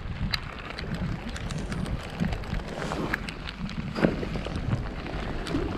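Wind buffeting the microphone in an open boat, with scattered sharp clicks and knocks: two close together about three seconds in and a louder one about four seconds in.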